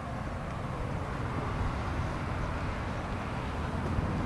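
Steady low rumble of a car engine idling.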